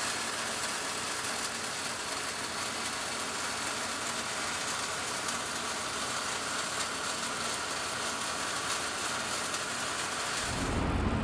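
The four MIG weld heads of an internal pipeline welding clamp burning wire, laying the root weld of a 36-inch pipe joint from inside the pipe: a steady arc hiss and crackle. Near the end a low machinery rumble comes in.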